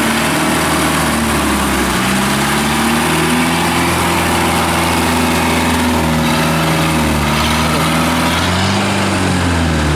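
Engine of a small tracked rice-hauling carrier running loud and steady as it drives down a bank into the paddy field, its pitch rising and falling a few times as the driver works the throttle.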